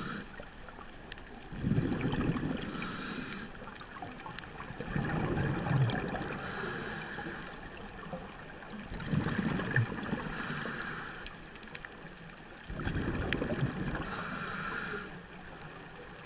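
Scuba diver breathing through a regulator, about one breath every four seconds. Each breath is a short hiss as air is drawn through the demand valve, then a longer rumble of exhaled bubbles.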